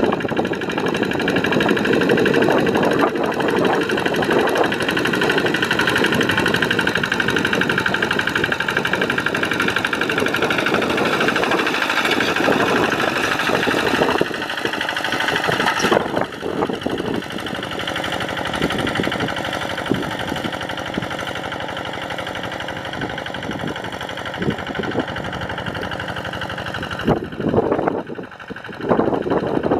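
Kubota RD85 single-cylinder diesel engine of a Quick G1000 Boxer hand tractor running steadily, a little quieter from about halfway, with a brief dip near the end.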